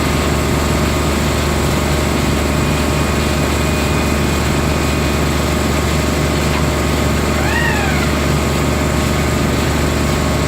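Concrete recycling machine running steadily with a constant mechanical hum. About seven and a half seconds in, a short squeal rises and falls in pitch.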